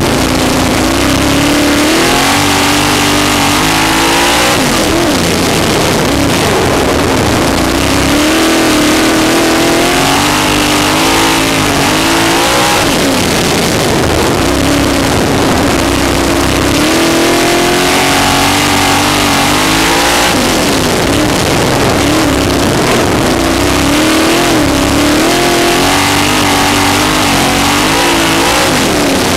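Sprint car's V8 engine heard on board, loud throughout. It climbs in pitch under power, then drops off sharply roughly every eight seconds as the driver lifts for the turns, under a constant rushing noise.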